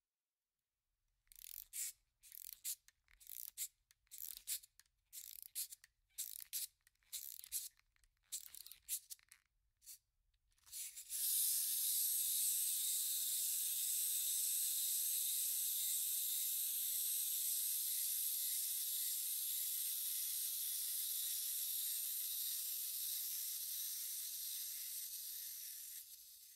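A run of short, crisp paper-tearing sound effects, about two a second, then a steady high hiss from a little before halfway that fades out near the end.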